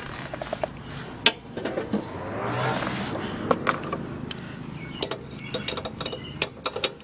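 Scattered sharp metal clicks and clinks, quickening near the end into rapid ratchet clicking as a spark plug is wrenched back into a Briggs & Stratton lawn mower engine. A brief rushing noise swells and fades about two and a half seconds in.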